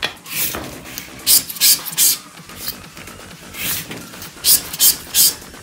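Scratch-off lottery tickets being handled and scraped: a string of short, dry rasping strokes of a scraper on the coated card, mixed with paper handling.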